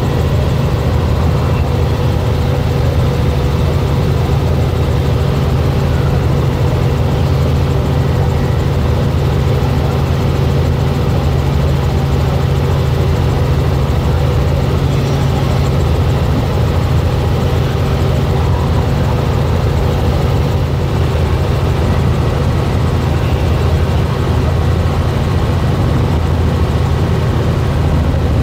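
Robinson R44 helicopter's six-cylinder Lycoming piston engine and rotors droning steadily in cruise flight, heard inside the cabin as a loud, even, low hum with a few steady tones above it.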